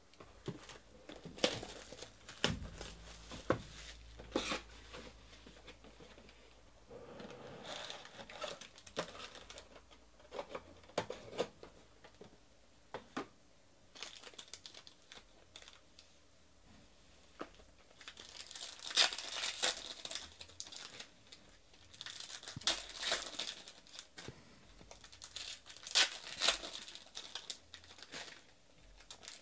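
Hands handling foil trading-card packs: scattered clicks and rustles as the packs come out of the box, then the foil wrappers crinkling and tearing open in three bursts in the second half.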